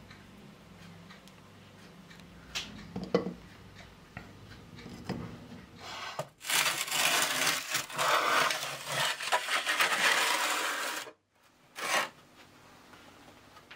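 Metal baking tray scraping and grating across the floor of a traditional masonry oven as it is pulled out: a few light knocks, then one long rough scrape of about four and a half seconds that cuts off suddenly, and a short scrape about a second later.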